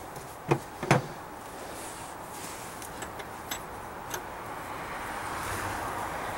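Two sharp metallic clicks as the steel fuel injection line is fitted back onto the delivery valve holder of a Bosch P-7100 injection pump, then a few faint ticks of a wrench on the line nut. Under it is a steady rushing hiss that grows slowly louder toward the end.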